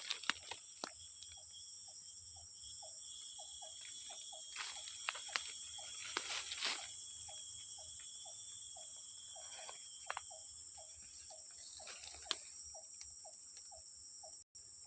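Rainforest insects droning steadily at several high pitches, with a regular train of short, low call notes about two a second. Footsteps crunch through dry leaf litter, most loudly around five and seven seconds in.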